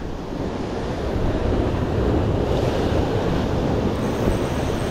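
Heavy sea waves surging and breaking against the shore, with wind buffeting the microphone.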